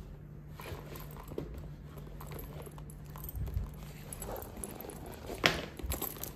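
A plastic bag rustling and knocking as it is carried and handled, with scattered small clicks, one sharp knock about five and a half seconds in, and a low steady hum underneath.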